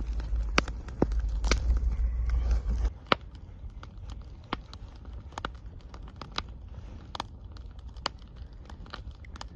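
Wood campfire crackling, with sharp scattered pops about once or twice a second. A heavy low rumble runs under it for the first three seconds, then drops away.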